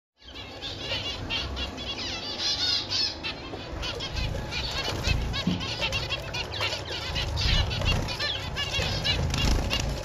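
Several white zebra finches calling with many short, repeated chirps that overlap one another, mixed with the flutter of wings as birds hop and fly about.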